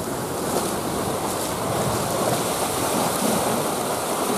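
Sea swell surging and breaking through a narrow channel between chalk rock walls, a steady wash of water that grows a little louder about two seconds in.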